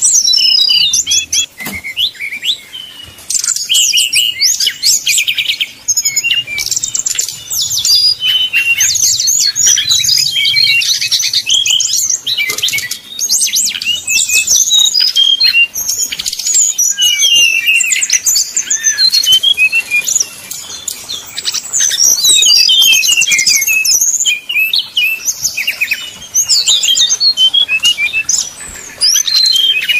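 Brown-chested jungle flycatcher (sikatan rimba dada coklat) singing a rapid, aggressive fighting-style song: dense runs of sharp chirps, trills and whistled notes following one another almost without pause, broken by a few brief lulls.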